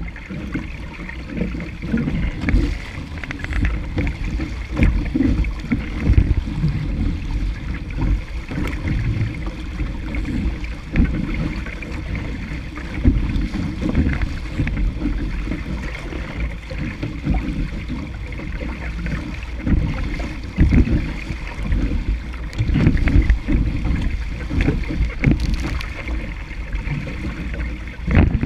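Wind buffeting the microphone of a deck-mounted camera on a small sailing dinghy, an uneven gusting rumble, over the steady hiss of water rushing and splashing along the hull as the boat sails at speed.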